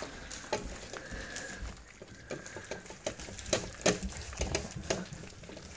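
Labrador retriever puppies, three weeks old, lapping and slurping moist dog-food gruel from stainless steel bowls, with irregular clicks of tongues, teeth and paws against the metal.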